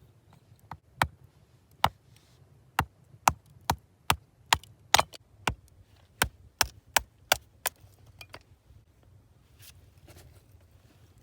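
Chopping: about fifteen sharp strikes of a tool into wood at an uneven pace of roughly two a second, stopping near the end.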